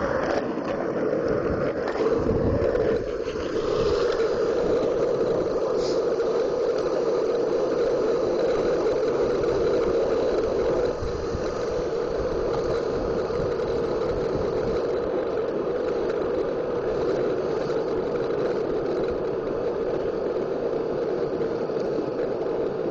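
Homemade skateboard's wheels rolling steadily down an asphalt road, a continuous rolling rumble that drops a little in level about eleven seconds in.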